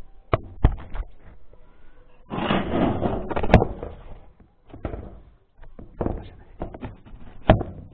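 Handling noise as a small camera is set down on a wooden plank: a few sharp knocks on the wood and a rustling scrape in the middle, with another knock near the end.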